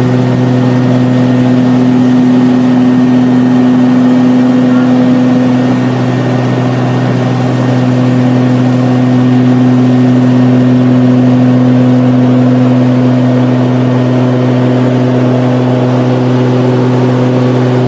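Cabin drone of a Beechcraft Duke B60 in flight: its twin piston engines and propellers run steadily, giving a loud, even, low hum.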